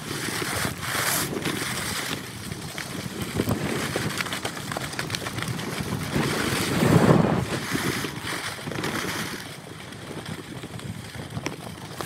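Wind buffeting the microphone and skis hissing and scraping over packed snow during a fast downhill ski run, sped up to double speed, with a louder swell about seven seconds in.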